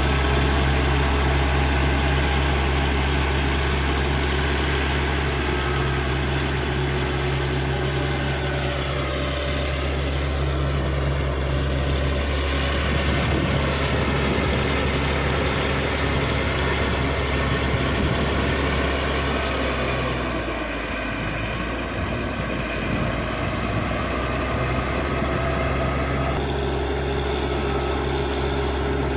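Caterpillar D6G bulldozer's diesel engine running steadily, its pitch sagging about a third of the way in and the sound dipping briefly past two-thirds.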